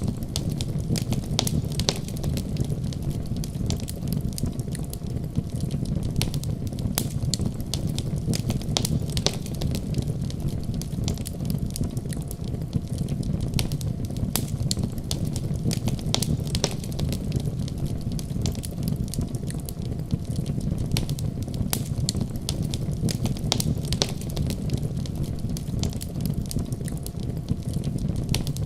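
Wood fire crackling in a fireplace: many sharp, irregular pops and snaps over a steady low rumble.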